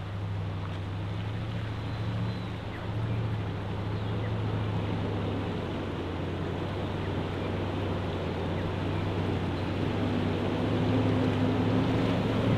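A 4WD's engine running at low, steady revs in first gear low range as it wades slowly through a shallow creek, with water rushing around it. It grows gradually louder as the vehicle comes closer.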